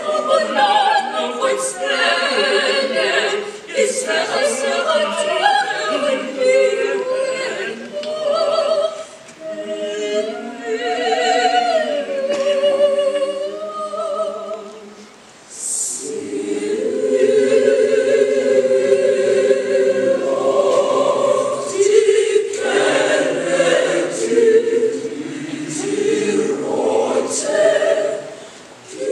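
Large mixed-voice choir of boys and girls singing together. About halfway through the singing breaks off briefly, then the choir comes back in fuller, with the low voices stronger.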